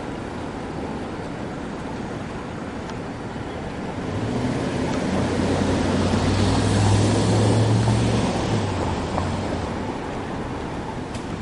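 Street traffic noise, with a vehicle passing close by: a low hum and rushing sound swell from about four seconds in, peak past the middle, and fade near the end.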